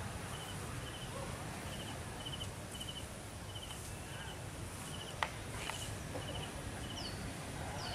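Quiet outdoor ambience: a steady low rumble with a short, high chirp of three or four quick pulses repeating about once a second. A single sharp click comes about five seconds in.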